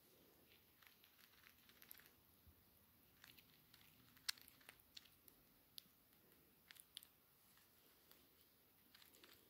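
Baby squirrel chewing and nibbling close to the microphone: faint, irregular little clicks and crunches, with one sharper click a little after the middle.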